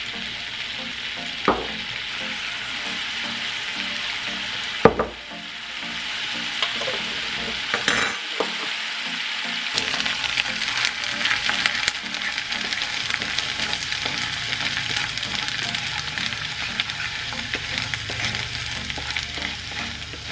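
Minced garlic sizzling in butter and olive oil in a frying pan, stirred with a wooden spatula that scrapes across the pan. A sharp knock comes about five seconds in, with a smaller one earlier.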